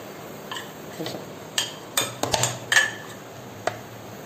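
A metal spoon stirring thick spice paste in a glass bowl, clinking and scraping against the glass in a string of separate sharp taps, most of them bunched together in the middle.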